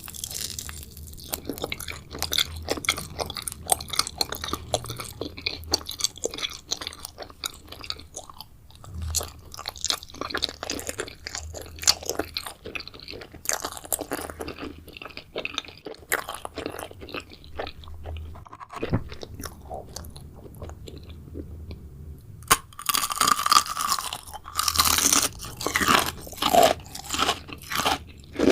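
Close-up mouth sounds of chewing and crunching eyeball-shaped jelly candy, a steady run of wet clicks and crackles that grows louder and denser with bigger bites in the last few seconds.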